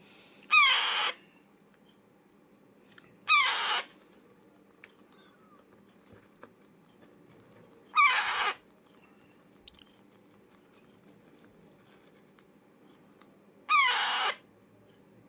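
Alexandrine parakeet giving four loud, harsh squawks, each about half a second long and several seconds apart.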